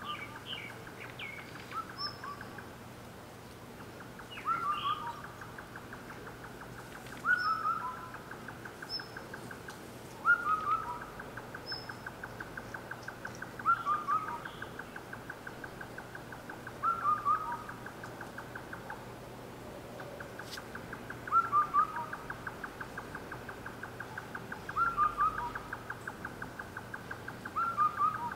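A night bird calling a short phrase of two or three falling notes, repeated about every three seconds, over a steady fast pulsing trill of about five pulses a second.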